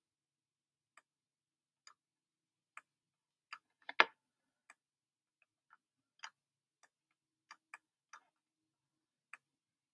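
Faint, sharp clicks of a computer pointing device as drawing strokes are made on screen, scattered irregularly about one or two a second, with one louder click about four seconds in.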